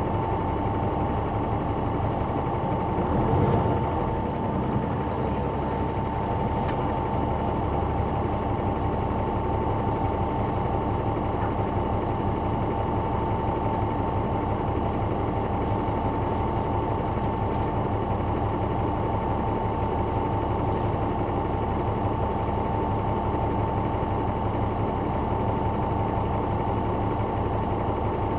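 Caterpillar C9 ACERT diesel engine of a 2004 Neoplan AN459 articulated bus running steadily, heard from inside at the back of the bus, with a steady high whine over the engine sound. A brief louder rumble swells about three seconds in.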